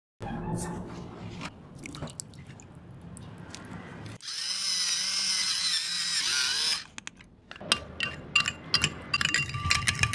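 Pepper grinder grinding black pepper over a bowl for about two and a half seconds, in the middle. It is followed by a metal spoon clinking repeatedly against a ceramic bowl as a liquid sauce is stirred.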